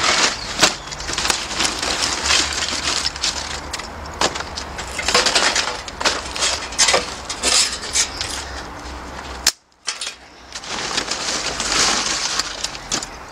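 Dry sticks and twigs rustling in a paper sack and clattering into a metal charcoal chimney starter: continual crackling, snapping and light knocks of wood on thin steel. The sound drops out for a moment about ten seconds in.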